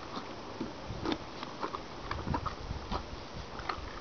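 A horse chewing and nibbling a stick of licorice, with soft, irregular crunching clicks.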